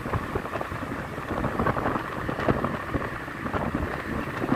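Riding on a motorbike: wind buffeting the microphone over the engine and road noise, a steady rushing rumble broken by many short crackling gusts.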